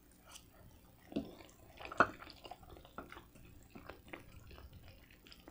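Chewing a mouthful of spaghetti: soft wet mouth sounds and scattered small clicks. In the second half a wooden fork twirls noodles on the plate.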